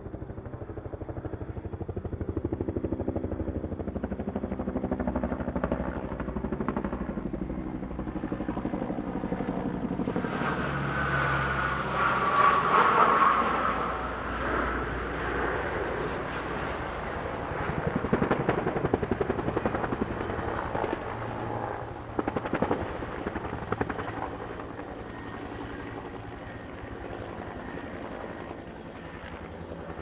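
Firefighting aircraft engines overhead: turboprop air tankers and a Bell medium helicopter's turbine and rotor. The sound builds to a loud pass about a third of the way in, with a high engine whine, then fades steadily.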